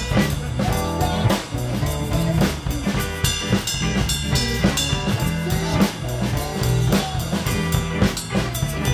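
Live band music with no singing: electric guitar and keyboard over a steady drum-kit beat and bass line.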